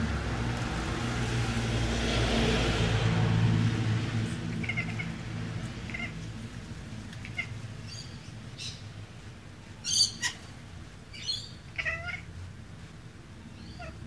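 A cat making short, bird-like chirps and chatter while stalking a bird, about ten brief calls spread irregularly, the loudest about ten seconds in, some in quick pairs. A steady low rumble and hiss fills the first few seconds and fades.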